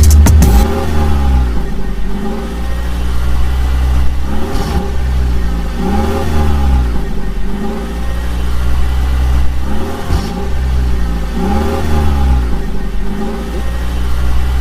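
A vehicle engine revving up and down again and again, about once every two seconds, over a deep steady rumble.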